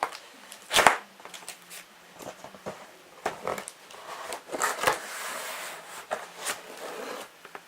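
Cardboard box and packaging being handled and rummaged through: scattered rustles and light knocks, with one sharp knock about a second in and a longer stretch of rustling past the middle.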